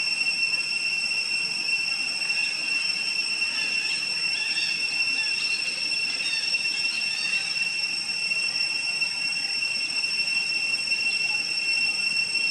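Insects droning outdoors: a steady high-pitched whine that never breaks. Faint short chirps come through in the middle.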